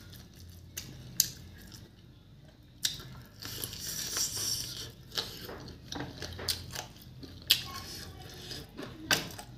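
A person biting and chewing chicken feet and rice, with irregular sharp clicks and short crunchy bursts.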